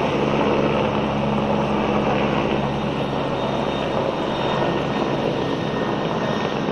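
Helicopter taking off and climbing away, its rotor and engine sound steady and slowly fading as it moves off.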